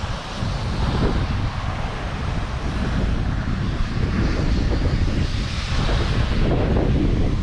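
Strong wind buffeting the microphone, a steady gusting rumble.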